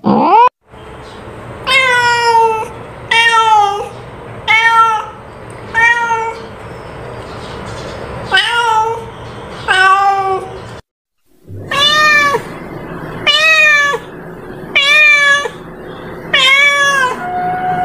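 Orange-and-white domestic cat meowing over and over: about ten short meows that rise and fall, one every second and a half or so, broken by a brief silence near the middle.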